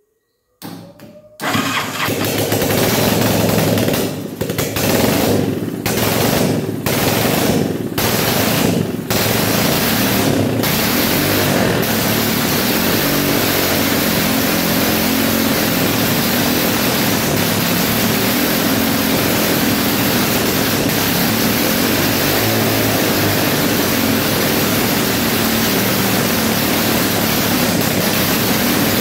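Freshly restored Bajaj three-wheeler four-stroke single-cylinder engine starting on the bench: it catches within about a second and runs. It dips briefly several times in the first dozen seconds, then runs steadily.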